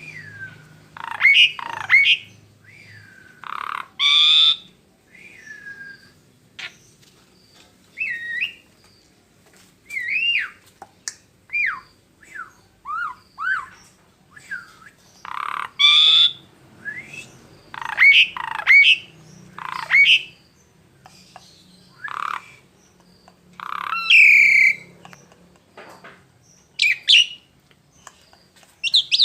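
A songbird singing loud, varied phrases: short whistled notes that slide up and down, mixed with harsh squawks, in quick bursts with short pauses between.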